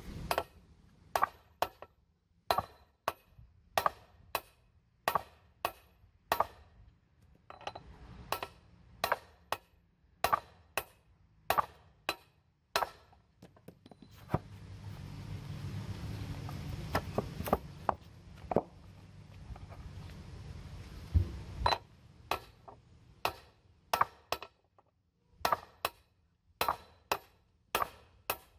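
Hammer blows on a steel socket set over a heavy truck driveshaft U-joint, driving the yoke to push the bearing cup out. The metal strikes come steadily, often in close pairs about once a second, with a short break and a few scattered knocks midway.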